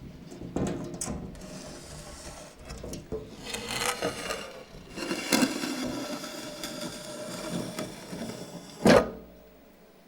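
Scraping and rubbing sounds with scattered knocks and clicks, swelling twice, then a single loud knock about nine seconds in.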